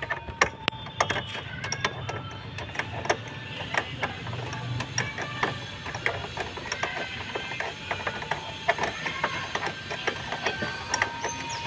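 Hand ratchet wrench clicking in rapid, irregular runs as bumper mounting bolts are worked loose.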